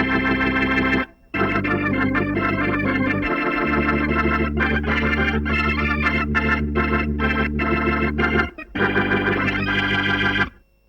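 Electric organ playing a short piece over held bass notes, with quick repeated chords in the middle. It breaks off briefly twice and stops shortly before the end.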